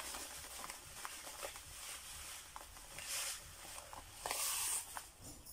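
Sea salt pouring from a paper pack into a glass bowl: a soft hiss of falling grains, louder in two short spells about three and four and a half seconds in.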